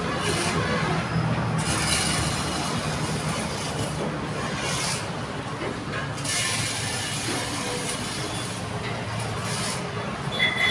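Steady mechanical running noise: a low rumble with hiss above it that comes and goes, and a thin high squeal near the end.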